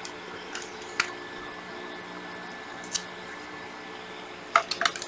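Hands handling hard plastic cordless power tools and a strip of masking tape: a few scattered sharp clicks and taps, then a quick cluster of louder clacks near the end, over a faint steady hum.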